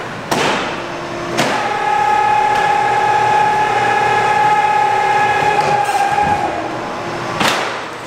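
Automated car-parking robot's electric drive whining steadily for about five seconds as it moves the car on its wheel clamps, with clunks of its mechanism before the whine starts and again near the end.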